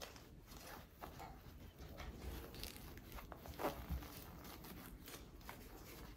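Faint rustling of fabric and small clicks of a zipper as fingers pull and work at the zip on a small plush catnip cushion, straining it hard enough that it tears.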